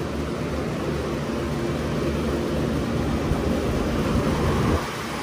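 Glycol chiller condensing unit running steadily: the newly fitted compressor hums under the fan noise of the new condenser fan motors. The loudness dips briefly near the end.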